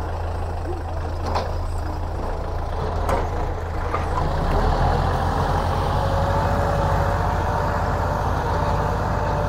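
Kubota L4708 tractor's 47-horsepower diesel engine running steadily under load as it pulls a disc plough through the soil. A few short knocks come in the first few seconds, and the engine grows louder from about halfway through.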